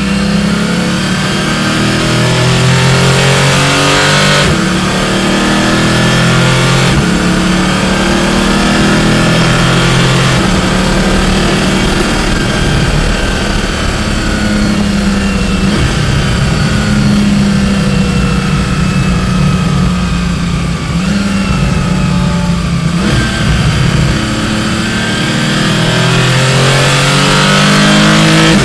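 Porsche 718 Clubsport's mid-mounted flat-six engine heard from inside the cabin at racing speed, its pitch climbing under full throttle and then dropping sharply at each of several gear changes.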